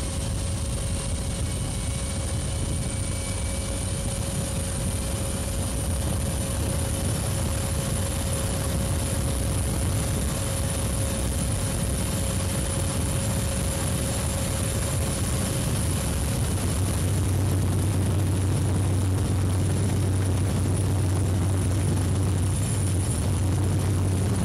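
Cessna Caravan's single turboprop engine at takeoff power, heard from aboard: a steady drone with a thin high whine over it. The low hum grows stronger about two-thirds of the way through.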